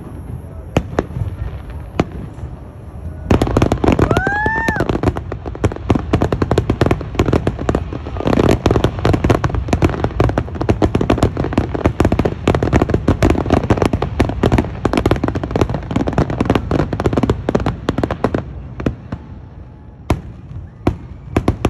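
Aerial fireworks display: a few scattered bangs, then from about three seconds in a dense, rapid barrage of bangs and crackles that thins out to single bangs near the end. A short rising whistle sounds about four seconds in.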